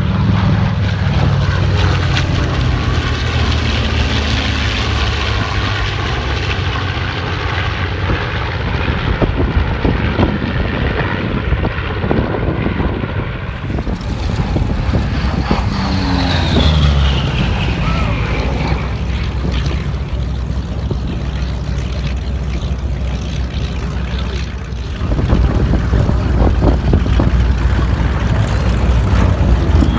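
Vintage piston-engine propeller warbirds, including a P-38 Lightning with its twin Allison V-12s, making low passes. A steady engine drone drops in pitch as each plane goes by and grows louder again near the end.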